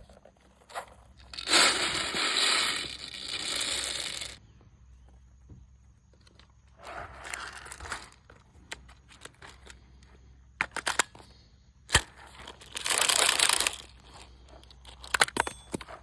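HPA-powered airsoft Glock firing full-auto in three rattling bursts, a long one of nearly three seconds and two of about a second, with a few single sharp cracks between them.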